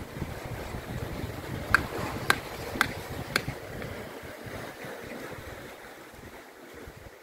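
Four sharp metal taps about half a second apart as a knife chips wild oysters off a rock, over a low rumble of wind on the microphone.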